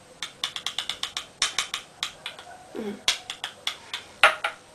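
Quick runs of small, sharp plastic clicks, several a second, from a small mineral-powder makeup jar being twisted open and handled. One louder click comes near the end.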